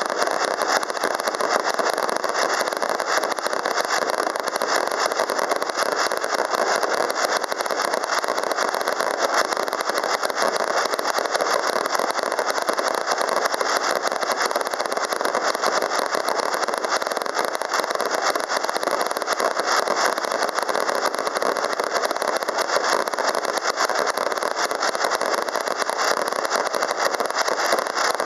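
A row of Rubro Strong Salute 36-shot titanium salute cakes firing together: a dense, unbroken barrage of loud bangs and crackling that merges into one continuous rumble.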